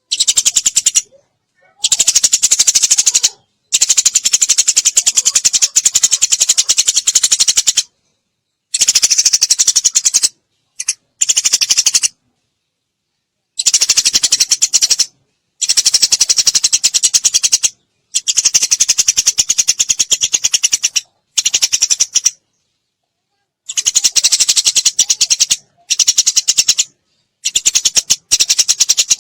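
Eurasian tree sparrow chattering in rapid-fire runs of chirps, the 'tembakan' bursts used in songbird masteran training. Each run lasts one to four seconds and breaks off sharply into short silences.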